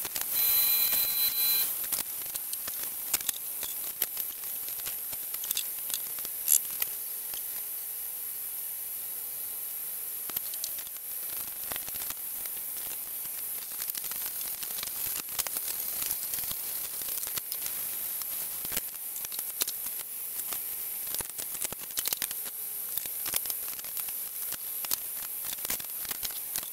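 Scattered clicks and knocks of parts and tools being handled on a milling machine's head, over a steady high-pitched hiss, with a short high tone in the first couple of seconds.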